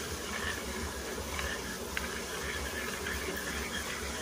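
Steady rush of a shallow rocky stream, with a faint high buzz over it and a soft click about two seconds in.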